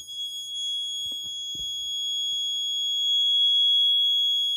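Piezo buzzer on a crack-detection rover sounding one steady, unbroken high-pitched tone: the crack alarm, on because a track crack has been detected. A few faint knocks come about a second in.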